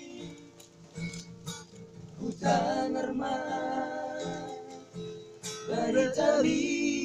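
Acoustic guitar strummed with a voice singing along, the singing coming in about a third of the way through and again near the end.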